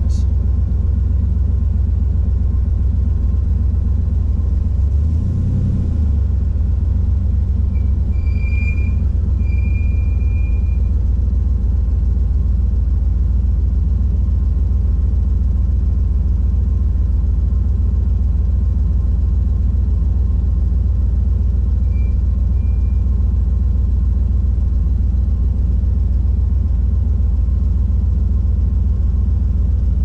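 Boosted 408 cubic-inch LS V8 running at a steady idle, heard from inside the car's cabin. A brief high-pitched brake squeal comes about eight seconds in, and a shorter one later.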